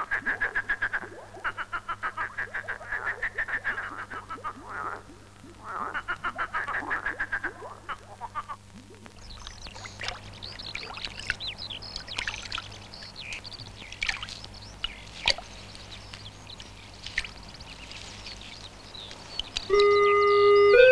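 Frogs croaking in rattling bouts of two to three seconds, then small splashes and drips of water as a European pond turtle moves through shallow water among reeds. Music with held instrumental notes comes in near the end.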